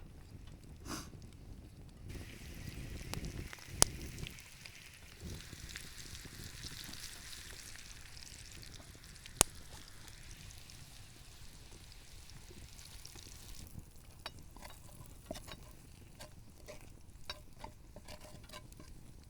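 Potatoes frying in butter in a pan over a campfire. The sizzle starts about two seconds in and stops about two-thirds of the way through, with two sharp cracks, the loudest sounds, and scattered small clicks after it stops.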